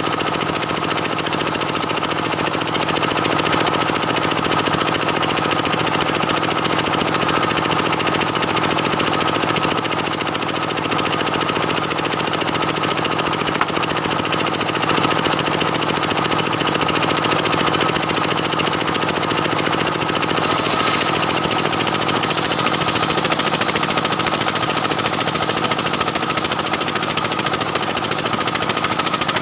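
Stihl 070 two-stroke chainsaw running steadily at high revs, ripping lengthwise through a dense jackfruit-wood log. The tone brightens slightly about two thirds of the way in.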